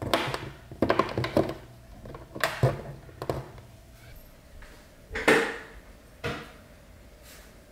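Plastic lip gloss tubes clicking and knocking as they are set into a clear plastic organizer tray in a drawer: a run of short, light knocks, with a louder knock about five seconds in.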